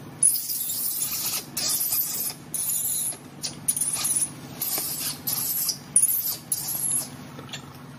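Baby macaque crying in a run of about a dozen short, shrill squeals, one every half second or so.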